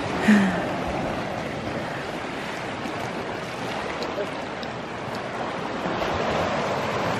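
Small Lake Superior waves washing against the flat rock shoreline, a steady rush of water.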